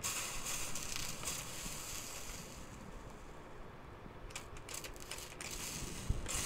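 Hand spray bottle misting the hot, freshly soldered silverware, which hisses and sizzles as it is cooled. A long hiss starts suddenly, and a quick run of short spritz bursts follows about two-thirds of the way through.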